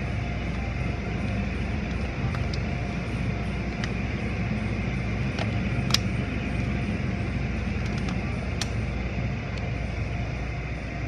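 Automatic tunnel car wash machinery running: a steady low hum under a constant wash of noise, with a few sharp clicks, the loudest about six seconds in.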